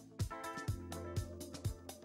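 Background music with a steady beat, about two beats a second, over a held bass line.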